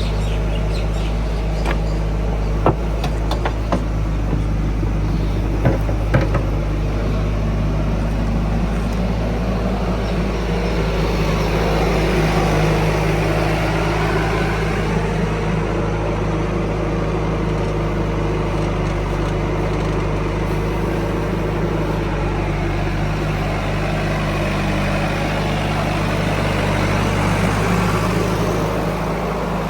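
Heavy diesel engine running steadily, its drone swelling slightly twice, with a few sharp knocks in the first several seconds.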